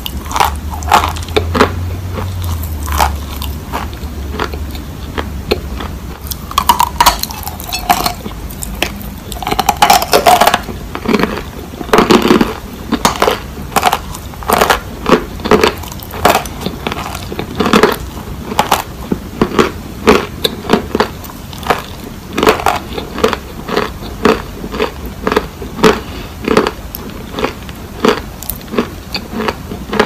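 Dry chunks of Turkistan white clay crunching and clicking: a continuous run of sharp, irregular crunches, several a second.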